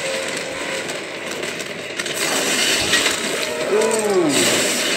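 Action sound effects from a TV episode soundtrack: clanks and clatter over a steady hiss. Near the end there is one rising-and-falling wincing "ooh" from a viewer.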